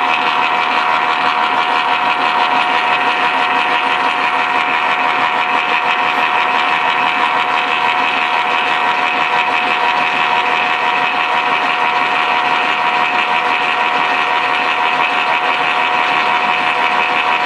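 Gearbox of a Hanomag 2/10 PS 'Kommissbrot' on a test run after repair, its open gear train spinning steadily: a constant mechanical whine with several held tones over a whirring rattle of gears and shafts.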